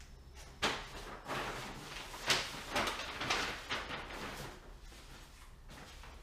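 Brown craft paper rustling and crinkling in a series of short bursts as it is spread and folded down over the edges of a table.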